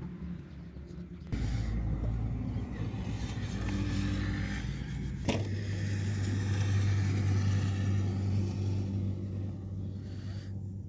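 An engine running steadily, starting abruptly about a second in and easing off near the end, with one sharp knock midway.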